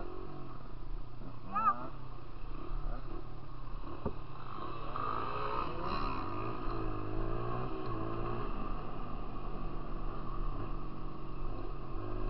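Dirt bike engine running along a gravel trail, its pitch rising and falling as the throttle is worked, with a short sharp burst about a second and a half in.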